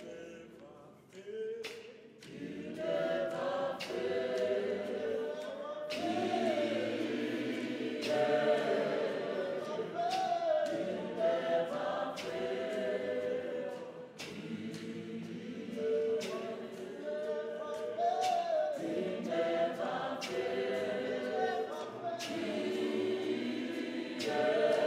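Zion church choir of men and women singing a cappella in harmony, with sharp beats every second or two. The singing drops briefly about a second in, then comes back in full.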